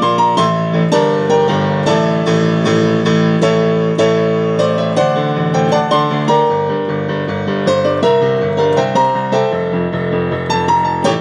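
Solo piano playing a pop song arrangement: a melody line over sustained chords and bass notes, struck in a steady rhythm.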